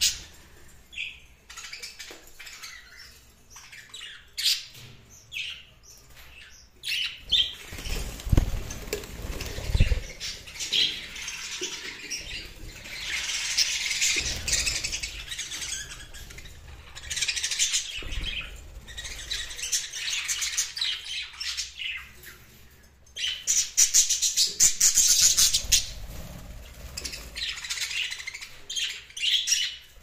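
A flock of budgerigars chattering and chirping continuously, with the flutter of wings as birds fly about. The chatter swells loudest around the middle and again about three-quarters through, and a couple of dull low thumps come about eight and ten seconds in.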